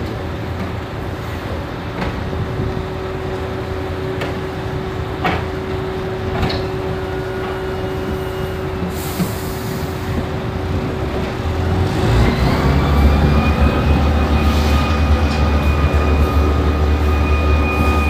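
Heavy concrete truck's diesel engine running steadily, with a few knocks and a short hiss about nine seconds in. About twelve seconds in the engine speeds up and holds a louder, higher steady note.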